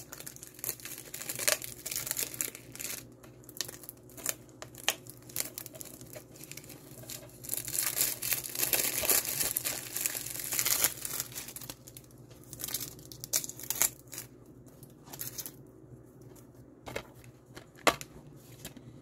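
Clear plastic shrink wrap being torn and peeled off a DVD case by hand, crinkling and crackling in irregular bursts, densest about halfway through. A sharp click near the end as the plastic case is handled open.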